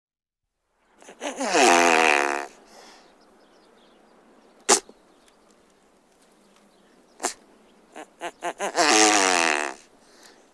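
Great bustard calls: two low, raspy calls, each about a second and a half long, one shortly after the start and one near the end, with a few sharp clicks between them.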